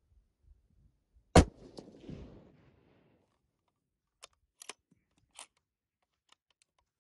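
A single shot from a Sako S20 bolt-action rifle in 6.5mm Creedmoor, its report echoing for about a second and a half. A few seconds later comes a run of sharp metallic clicks as the bolt is worked to eject the spent case and chamber the next round.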